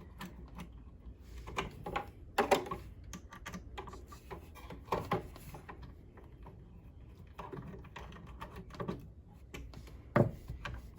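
Scattered small clicks and knocks, irregular and spread out, as parts of a Kenmore sewing machine are handled and fitted back into place.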